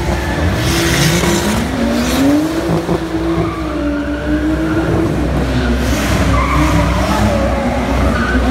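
Stunt cars drifting: engines revving up and down over and over, with tyres squealing and skidding, loudest about a second in and again about six seconds in.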